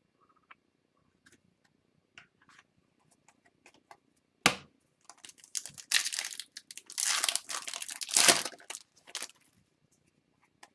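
Foil trading-card pack wrapper being torn open and crinkled by hand: a few faint clicks, a sharp snap about four and a half seconds in, then several seconds of loud crackling.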